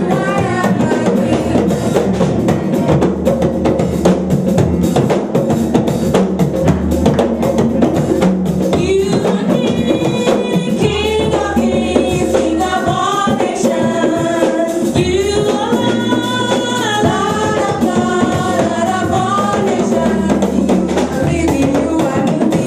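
Young choir singing a gospel song into microphones over live music: conga drums, a steady drum beat and a bass line. The sung melody comes through more clearly from about nine seconds in.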